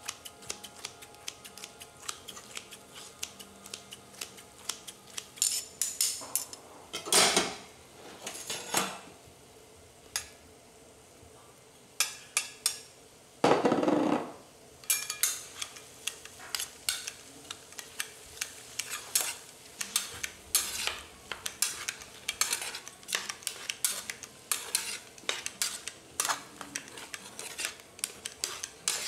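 Metal spatulas clattering, tapping and scraping on a teppan griddle while fried rice is chopped and tossed, in quick irregular clicks. There are two longer, louder stretches, about a quarter of the way in and about halfway through.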